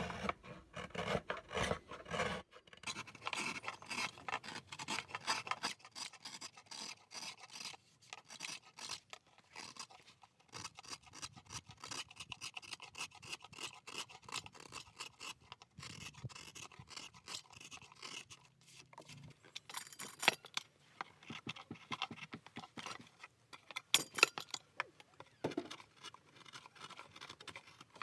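Hand tools scraping and carving wood in quick, repeated strokes, as a wooden plate is worked by hand, with a few sharper knocks in the second half.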